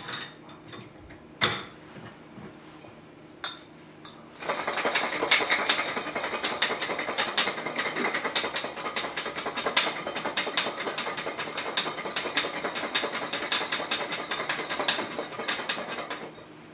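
Garlic cloves rattling hard inside a glass mason jar that is being shaken vigorously to knock their skins loose: a fast, continuous clatter starting about four seconds in and lasting roughly twelve seconds. Before it, two sharp knocks.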